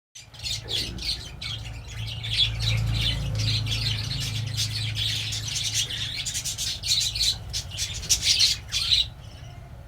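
Lovebirds squawking and chattering in rapid, rough calls over a low steady hum; the calls stop near the end.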